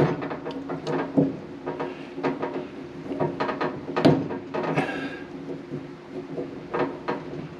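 Clicks, knocks and scrapes of a new plastic retainer clip being worked onto a dryer drum-roller shaft, over a steady low hum.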